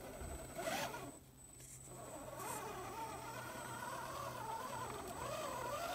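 RC rock crawler's drive motor and gearbox whining as it climbs rock, with a short rising rev about a second in and then a whine that wavers up and down with the throttle.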